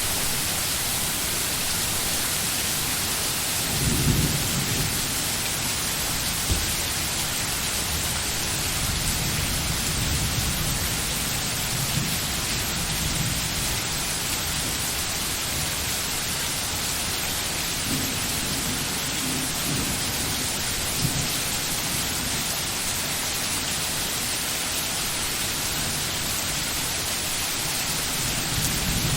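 Steady, heavy rain, an even hiss of falling drops. A short low rumble comes about four seconds in, and another low rumbling stretch comes about two-thirds of the way through.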